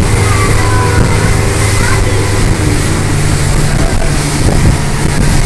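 Motorboat engine running steadily under wind and water noise; its note steps up a little about three and a half seconds in.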